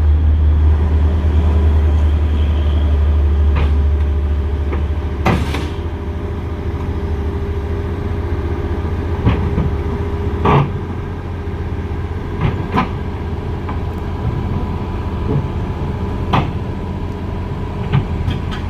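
Heavy diesel engine of the excavator or its transport truck running with a steady low rumble, louder for the first five seconds and then easing off. Several short sharp knocks sound over it.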